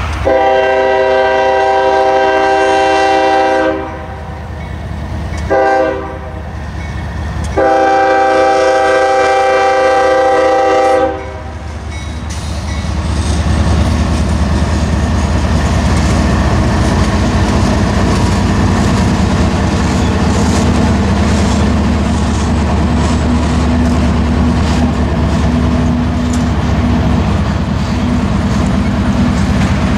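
Union Pacific diesel locomotive's multi-chime horn sounding a long blast, a short blast and a long blast for a grade crossing. Then the lead locomotives' diesel engines run past with a steady low rumble, and the wheels click over the rails as covered hopper cars roll by.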